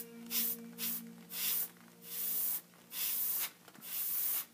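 Airbrush spraying paint in short hissing bursts, about seven in a row, each a few tenths of a second to half a second long, as the trigger is pulsed to lay down flame strokes.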